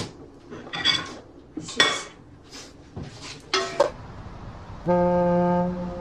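Dishes and cutlery clinking several times with short ringing tones, then about five seconds in a loud, steady blast from a ship's horn that dies away.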